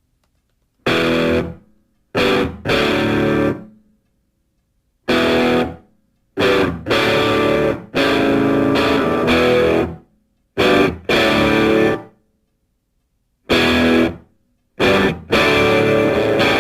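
Music: a distorted electric guitar playing chords in short stabs and held chords, each cut off by a full stop of silence before the next.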